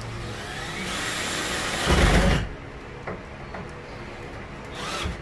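Cordless drill driving a drywall screw into wood framing: the motor speeds up over a couple of seconds, then a louder burst as the screw seats, and it stops suddenly. A few light clicks follow, then a second short drill burst near the end.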